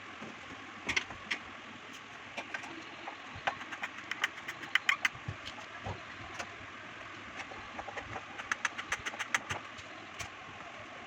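Screwdriver tightening the screws on the front grille of a Peavey monitor speaker cabinet: runs of quick, sharp clicks, busiest about four to five seconds in and again near nine seconds.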